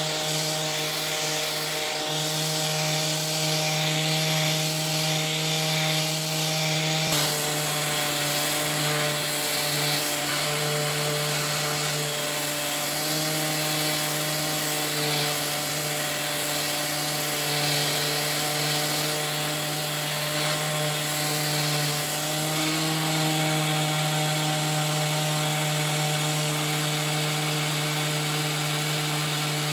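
Electric sander running steadily on a wooden tabletop, a continuous motor hum over the hiss of abrasive on wood, its pitch wavering slightly as the load changes.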